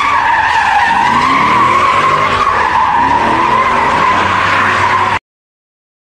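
Chevrolet Camaro's rear tyres squealing loudly and continuously as the car spins donuts, with the engine revving in rising sweeps underneath. The sound cuts off suddenly about five seconds in.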